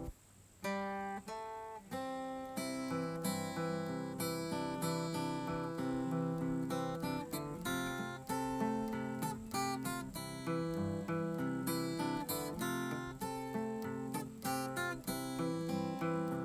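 Background music: acoustic guitar picking and strumming, with a brief break about half a second in.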